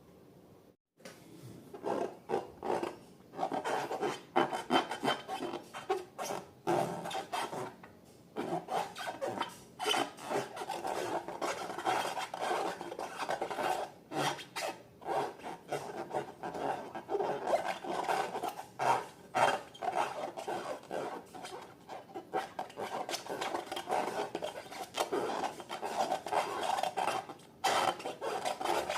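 Slime being mixed and worked by hand, a dense, irregular run of sticky clicks and rubbing noises that starts about a second in.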